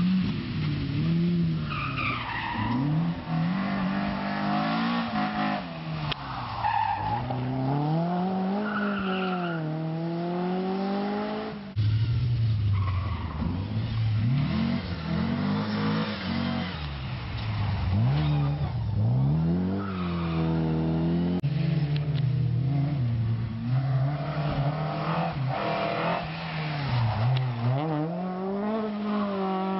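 Rally cars' engines revving hard, the pitch climbing and dropping with each gear change and lift of the throttle. Several cars go by in turn, and the sound changes abruptly twice as one car's run gives way to the next.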